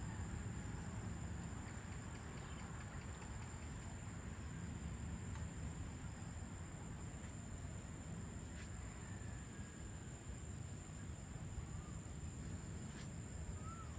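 Evening outdoor ambience: a steady high-pitched insect drone over a low rumble, with a few faint short chirps and light clicks in the second half.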